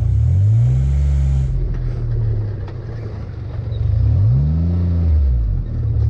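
Fuel-injected dune buggy engine revving up and easing off twice, the first about a second in and the second about four seconds in, as the buggy pulls away.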